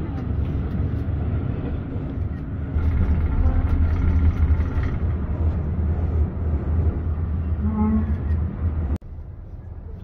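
Steady low rumble of a cable car gondola running along its line, growing louder about three seconds in and dropping away suddenly near the end.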